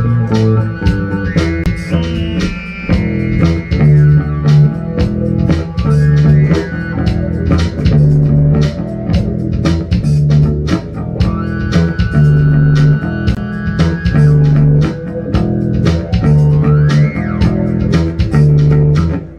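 Instrumental funk played by a band on synth keyboards and bass guitar: a bass riff repeats about once a second under a steady beat, with keyboard chords and lines on top. The music stops right at the end.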